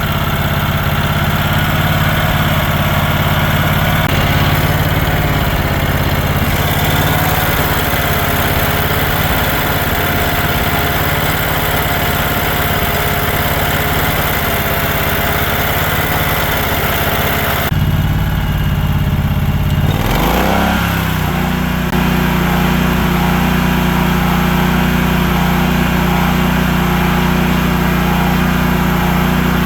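Centurion (Generac) 15 kW generator's 32 hp V-twin engine running steadily. About 18 seconds in the sound changes abruptly, and about two seconds later a rising whine settles into a steady, higher hum.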